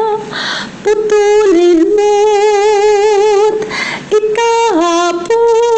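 A woman singing a slow hymn solo in Tagalog, holding long notes with a wavering vibrato. No accompaniment is heard, and there are two quick breaths between phrases.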